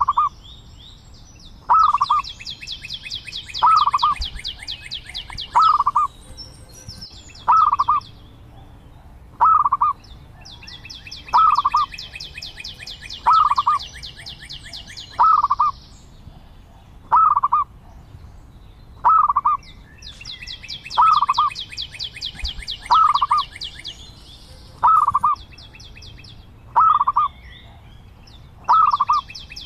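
Zebra dove cooing: a short coo repeated very evenly about every two seconds. A higher, rapid trill comes and goes behind it.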